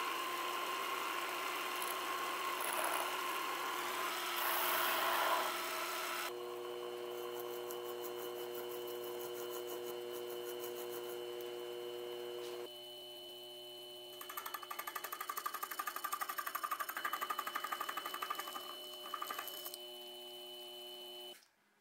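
Small hobby lathe running with its motor whine steady while a tool cuts a tiny engine part, the cutting noise heavy for the first few seconds, then the part is filed as it spins. After a drop about two-thirds through, a small milling spindle with a slitting saw cuts the slot in a cylinder screw head, making a fast, even ticking chatter that stops suddenly near the end.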